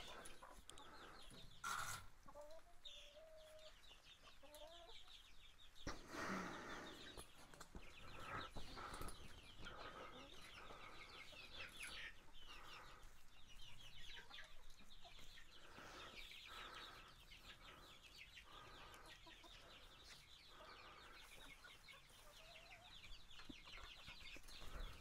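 Chickens clucking quietly in the coop, with a few faint clicks as wire is handled overhead.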